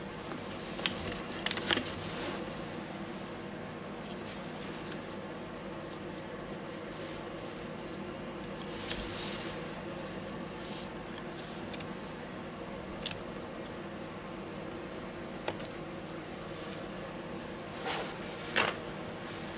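Gloved hands handling and fitting the wiring into the open plastic housing of a DeWalt DCH273 rotary hammer: scattered small clicks and light rubbing, a few sharper clicks near the start and near the end, over a steady faint hum.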